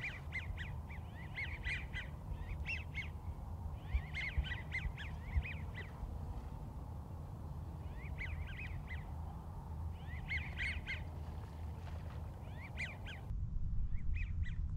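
American wigeon whistling: short groups of two or three high, arching whistled notes repeating every second or two, over a steady low rumble.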